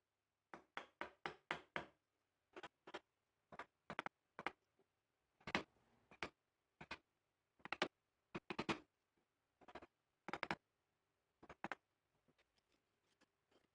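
Mallet blows on a chisel, sharp knocks chopping out a hole in the wood: a quick run of about six blows near the start, then single and paired blows spaced a second or so apart.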